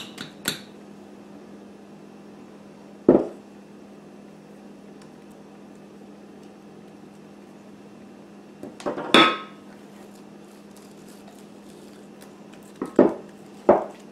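A spoon knocking and clinking against a mixing bowl and a cast-iron skillet, about five separate sharp knocks spread out, two of them close together near the end, as wet biscuit dough is scraped into the skillet and spread. A faint steady low hum runs underneath.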